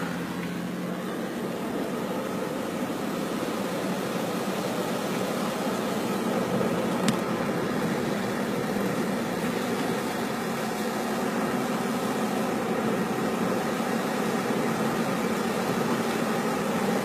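Steady road and engine noise inside a moving car, with a single short click about seven seconds in.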